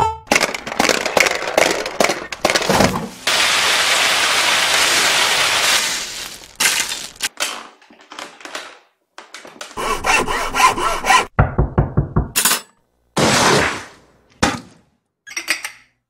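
A run of separate stock sound effects. It starts with dense cracking and knocking, like something breaking, then a few seconds of steady noise. After that come short bursts, including a quick rattle about twelve seconds in.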